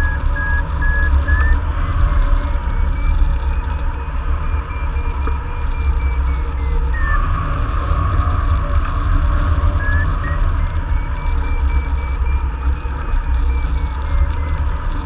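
Wind rushing over the microphone of a hang glider in flight, a steady heavy rumble. Over it a variometer beeps, its pitch stepping up and then back down as the climb rate in the thermal rises and falls, stopping for a few seconds in the middle before starting again.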